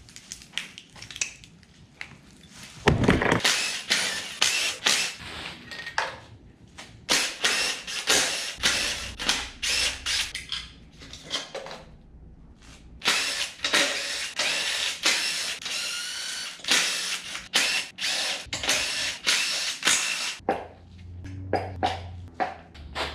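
Power tool running in many short bursts, with ratcheting and clattering, as bolts come off the top end of a Ford 4.6L two-valve V8 during teardown.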